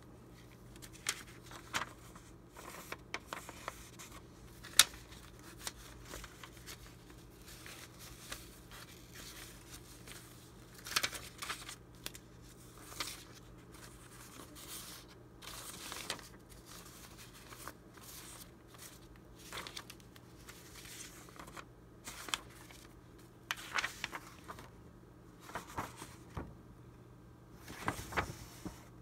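Sheets of old vintage paper being handled and shuffled by hand: irregular rustling, crinkling and flapping of the stiff aged paper, with scattered sharp crackles as sheets are lifted and slid over one another.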